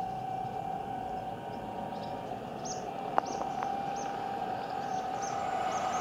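Steam locomotive 60163 Tornado, an LNER Peppercorn A1 Pacific, approaching at speed. Its rumble grows louder under a steady tone. A single sharp click comes about three seconds in.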